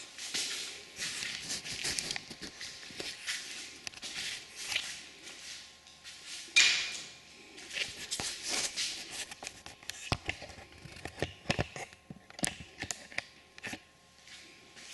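Scattered clicks, light knocks and rustling of hands handling parts and tools, with one louder knock about six and a half seconds in.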